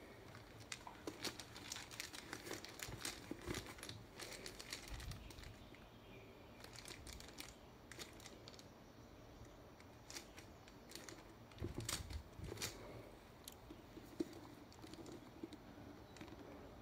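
Faint crinkling and rustling of hands handling a leather handbag and the clear plastic film wrapped around its handle, with scattered small clicks throughout and a denser patch of handling noise near the end.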